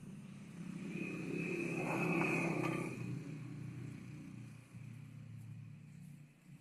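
A cow mooing: one long, low call that swells to its loudest about two seconds in and then fades.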